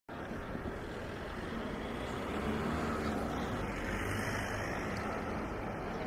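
Steady outdoor city street ambience: an even low rumble of distant traffic and town noise.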